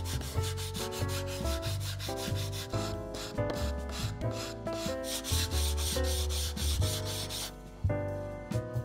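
Hand sanding block rubbed in rapid back-and-forth strokes along the edges of a walnut drawer-organizer grid, a dry scratchy hiss that stops near the end. Background music plays underneath.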